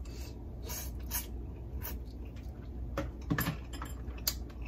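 Close-miked eating sounds from a seafood-boil meal: scattered wet clicks and smacks of chewing, one louder smack about three and a half seconds in, over a steady low hum.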